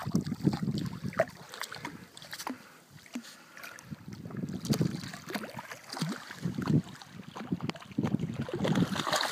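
Wind rumbling on the phone's microphone in several gusts, with scattered small clicks of handling noise.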